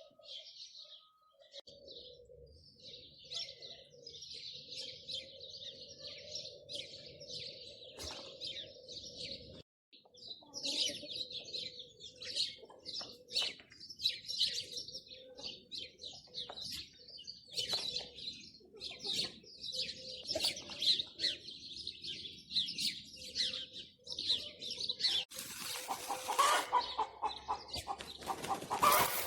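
Small birds chirping and twittering continuously, with a short gap about ten seconds in and a brief noisy rush near the end.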